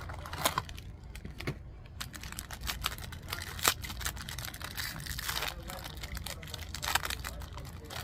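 Crinkling and rustling of a snack package being handled and opened: an irregular run of small crackles and clicks.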